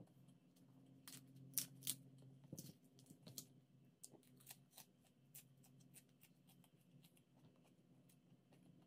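Faint crisp clicks and crunches of raw leafy greens being handled and chewed while eating by hand, a string of sharp ticks with the loudest pair about a second and a half in.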